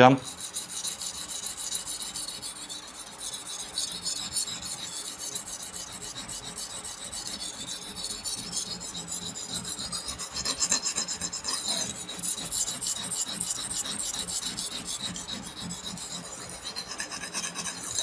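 Knife blade stroked rapidly back and forth on a water-lubricated Buck natural pocket whetstone: a steady scraping rasp of steel on stone as the second side of the edge is sharpened.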